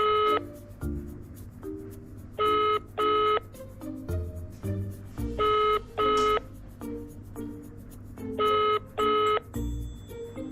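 Telephone ringback tone from a Nokia flip phone's loudspeaker: pairs of short beeps repeating about every three seconds while the outgoing call rings unanswered. Soft background music plays underneath.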